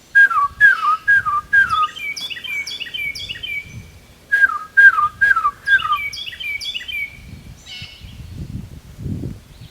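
Carolina wren singing, a fast series of repeated rolling phrases. Over it come loud down-slurred whistled notes from a bird, four in a row at the start and four more about four and a half seconds in. Low rumbling noise near the end.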